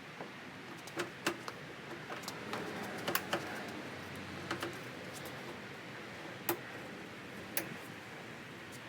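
Plastic push tabs of a Jeep Wrangler JK fender clicking into the body as the fender is pressed into place: about seven sharp, irregular clicks, the strongest about a second in and again near three, six and a half and seven and a half seconds.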